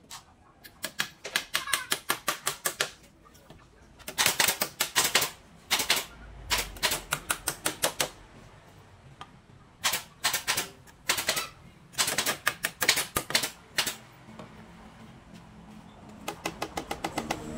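Quick runs of sharp taps on bamboo, about six a second, in several bursts with short pauses between, like light hammering while a bamboo chair is being put together.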